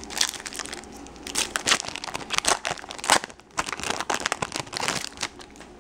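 Foil wrapper of a 2012 Bowman Draft Picks baseball card pack crinkling and tearing as it is pulled open by hand. The sound is a run of sharp, irregular crackles with a short lull about three and a half seconds in.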